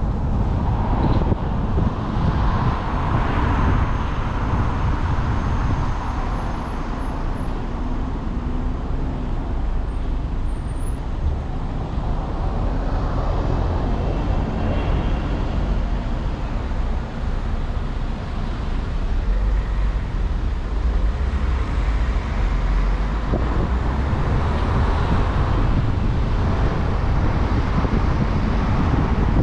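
Car driving along town roads: a steady low rumble of road and tyre noise, rising and easing in broad swells every several seconds.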